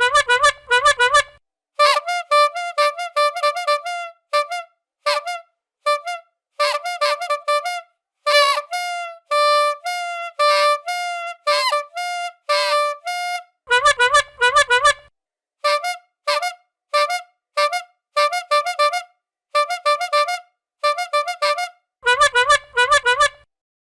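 Bicycle horn honking over and over: quick runs of short, pitched honks with gaps between the runs, and a stretch of longer honks with a wavering pitch near the middle.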